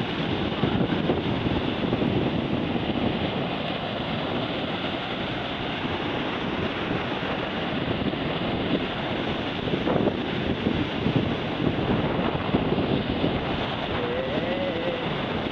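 Steady wind buffeting the microphone over the wash of surf on the shore.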